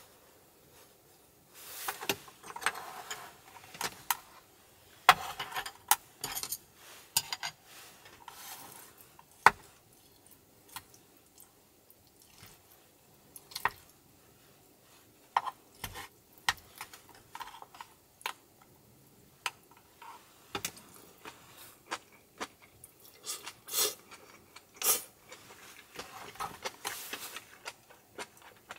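A spoon scraping and clicking against a metal mess tin while food is scooped up and eaten: scattered taps and short scrapes in clusters, with quiet stretches between.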